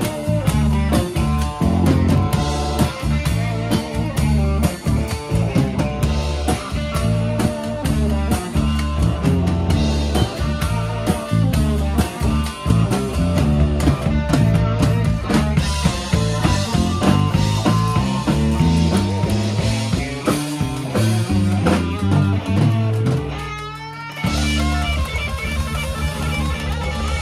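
Live rock band playing an instrumental passage on electric guitar, bass guitar and drum kit, with a washboard. Near the end the band drops out briefly under a rising glide, then comes back in.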